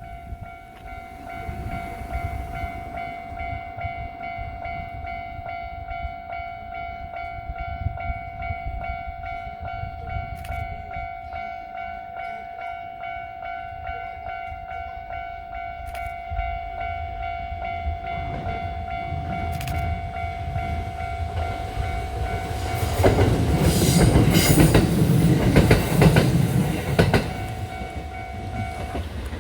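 Japanese level-crossing warning bell ringing steadily while a Kintetsu train approaches and passes over the crossing. The train's wheels clatter loudly over the rail joints for about four seconds near the end, and the bell stops just after the train has gone.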